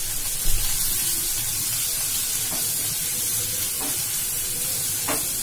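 Chopped onions sizzling steadily in hot oil in a kadhai as they are stirred with a wooden spatula, with a few light strokes of the spatula against the pan.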